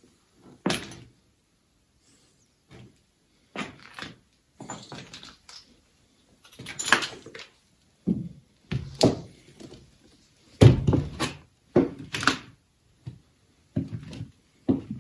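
A series of irregular knocks and thuds, about a dozen short sounds with pauses between them, heard in a small room.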